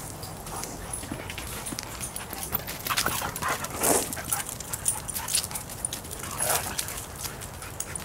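A dog making a few short whimpering noises, a cluster about three to four seconds in and another about six and a half seconds in, over light scattered clicks and rustling.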